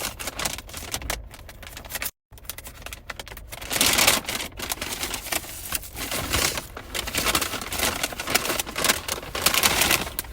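Rapid, continuous crackling and clicking of plastic takeout packaging being handled, with a brief dropout about two seconds in.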